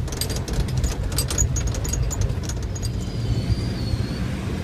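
Vehicle cabin noise on a rough dirt road: a steady low engine and road rumble with quick clattering rattles from the jolting body, which stop about halfway through.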